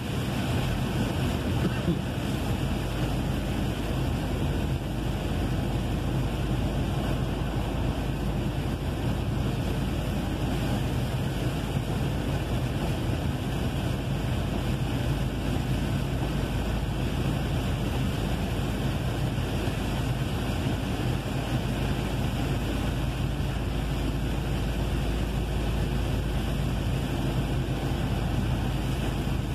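Steady road noise inside a truck's cab driving on a rain-soaked highway: a constant engine hum under the hiss of tyres on the wet road.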